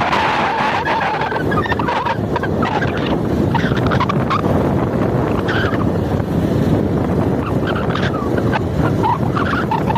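Wind rumbling steadily on a phone microphone, with short scattered shouts over it.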